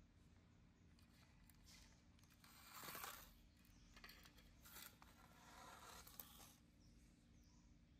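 Near silence: quiet room tone with a few faint rustles and scrapes in the middle and one small click.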